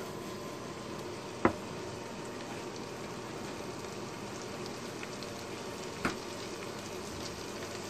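Sausage slices, mushrooms and butter frying in a nonstick pan, a steady sizzle. A sharp knock about one and a half seconds in as the pan is set back down on the burner's glass top, and a lighter click about six seconds in.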